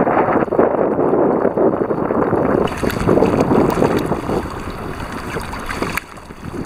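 Wind buffeting the microphone over sea water sloshing and splashing against a concrete breakwater.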